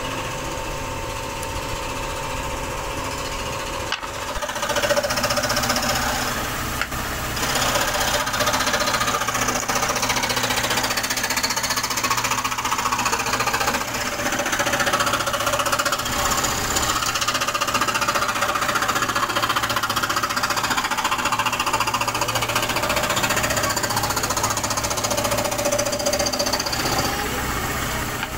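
Table-mounted jigsaw (scroll-saw style) blade reciprocating rapidly as it cuts wood into ring-shaped discs, a steady mechanical rattle. It gets louder about four seconds in.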